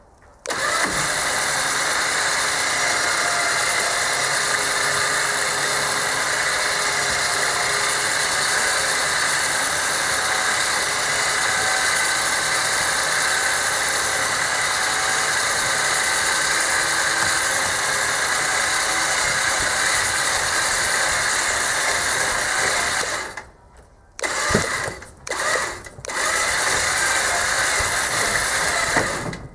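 Powered winch motor running steadily under load as it pulls the strap in. It stops near the end, gives two short bursts, then runs again.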